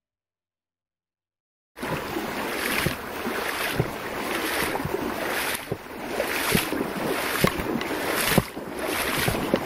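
Silence, then about two seconds in the outdoor sound of a river starts abruptly: running water with wind buffeting the microphone, swelling and easing about once a second, with scattered small knocks.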